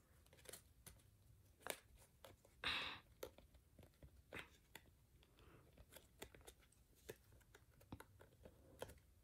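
Faint crinkling and creasing of thick, many-layered origami paper being folded and pinched by hand: soft scattered clicks and rustles, with one louder brief rustle about three seconds in.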